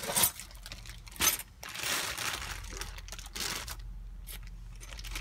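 A cardboard brake-shoe kit box and its packaging being opened and handled, with short irregular rustling scrapes and two sharp knocks in the first second and a half.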